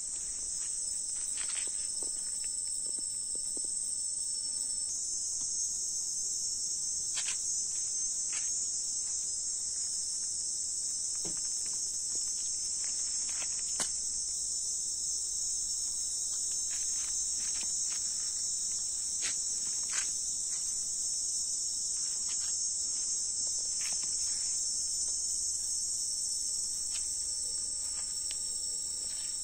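A steady, high-pitched chorus of insects, with a few faint scattered clicks.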